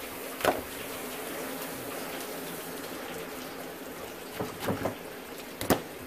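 Tap water running steadily, with two sharp knocks, one about half a second in and one near the end, and a few lighter knocks just before the second.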